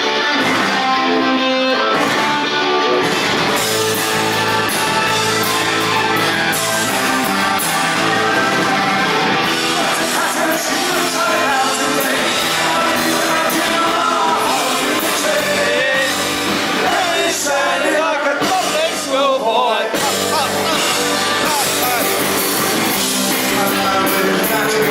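A live rock band playing loudly with a sung lead vocal over electric guitar and the full band.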